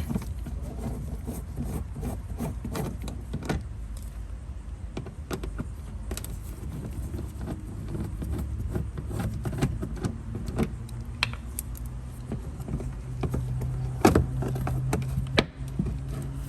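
Screws being taken out of a car's front turn-signal housing: scattered small clicks and taps of the tool and metal screws, with a sharper knock about fourteen seconds in, over a steady low rumble.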